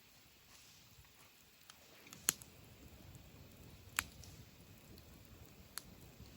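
Wood campfire burning, with a few sharp crackles and pops, the loudest about two seconds in and another about four seconds in, over a faint steady background.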